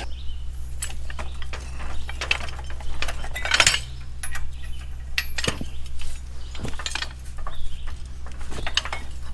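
Steel trip-hitch parts of a John Deere No. 51 plow clinking and knocking as the hitch assembly is handled and lifted off the frame: a scatter of light metal clinks, with a louder knock a little over three and a half seconds in.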